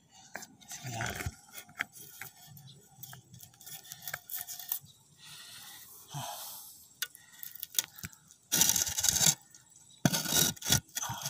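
Handling noise from a phone being set in place and adjusted: scattered scrapes, rubs and light clicks, then two loud rubbing scrapes near the end as it is moved close up.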